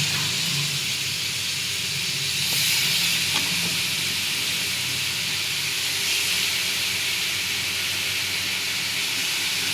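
Raw chicken pieces sizzling in hot oil and masala in a kadai, a steady loud hiss just after the chicken goes in, with a low hum beneath.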